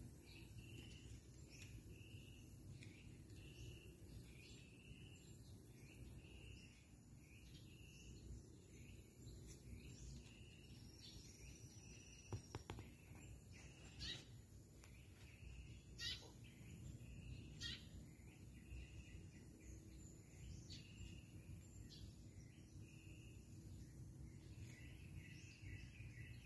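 Faint outdoor ambience: a steady low rumble with a short high chirp repeating every half second to a second, and four sharp ticks in the middle stretch.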